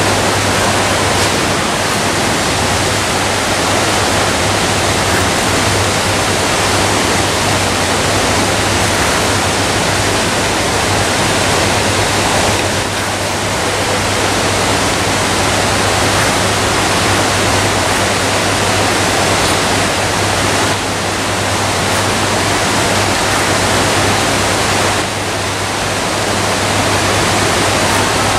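Steady rush of water in a large aquarium tank, with a constant low hum underneath.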